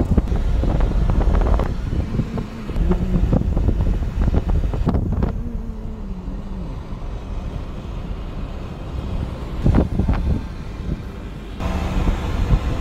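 Car driving along a road, heard from inside: a steady low rumble of engine and tyres with wind buffeting the microphone. The wind hiss gets stronger near the end.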